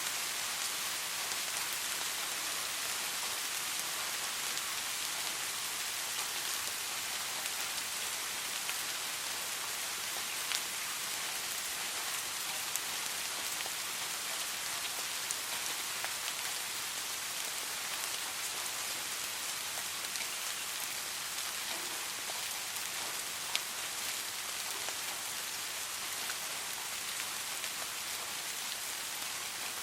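Steady soft rain falling, a continuous hiss with scattered close drop ticks, a few of them sharper.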